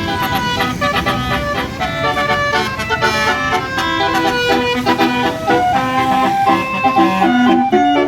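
Tour bus basuri multi-trumpet air horn ('telolet') playing a fast tune of changing notes over the bus engine.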